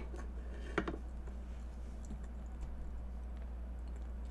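Metal serving tongs clicking on a wooden cutting board as they are set down: two sharp clicks just under a second apart, then a few faint ticks, over a steady low hum.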